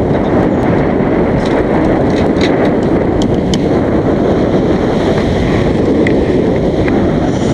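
Wind buffeting the microphone of a camera carried on a moving bike, a loud steady rumble with a few light ticks scattered through it.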